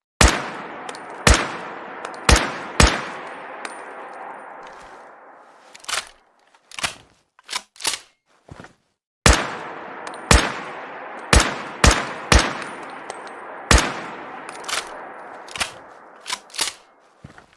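Rifle sound effect: a shot with a long echoing tail just after the start and another about nine seconds in, each tail dying away over about five seconds, with a string of other sharp cracks and clicks among them.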